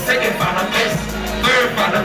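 Hip hop track playing: a beat with deep bass and a vocal over it.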